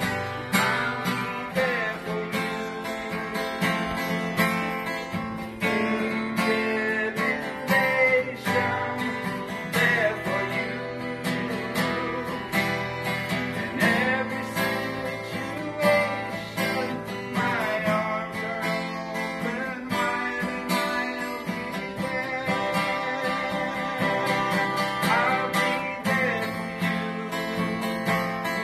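Acoustic guitar played in an instrumental passage of a worship song, with a steady run of chords and single notes and no singing.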